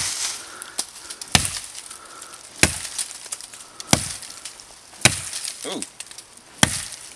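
Axe chopping into the base of a thin tree trunk: five sharp strikes, a little over a second apart.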